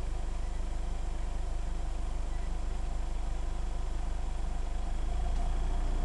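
Mitsubishi L200 pickup driving along a dirt road: steady low engine and road rumble, getting a little louder about five seconds in.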